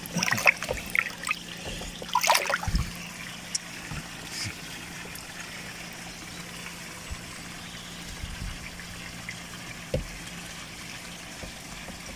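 Water splashing and sloshing in a shallow fish bowl as a large koi is handled and moves about, most busily in the first few seconds. After that, a steady trickle of water with a constant low hum, and a single knock about ten seconds in.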